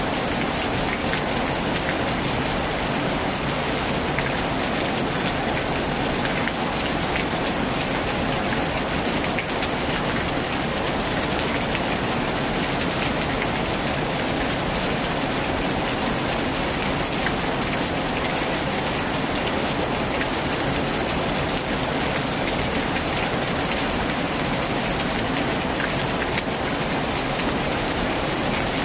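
Heavy rain falling steadily on a tin roof, a dense even wash with many small drop impacts.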